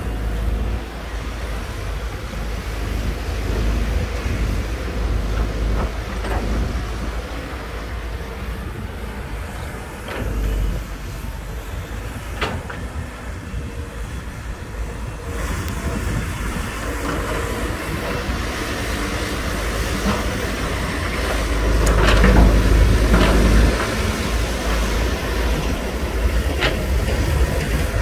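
Excavators digging: the diesel engine of a Volvo EC210DL tracked excavator runs steadily under load, with a deep rumble and a few short knocks from the bucket working the earth. The sound swells louder for a couple of seconds about three-quarters of the way through.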